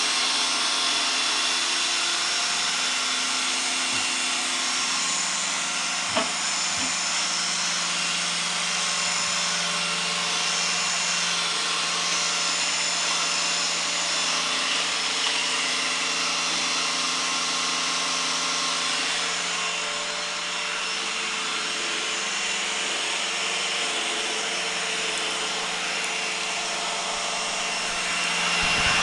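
Roomba 980 robot vacuum running: the steady whir of its suction motor and brushes, with one brief click about six seconds in.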